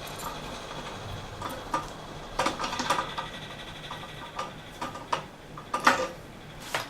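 Metal tools and fittings being handled: a series of scattered clinks and knocks over a faint steady high tone.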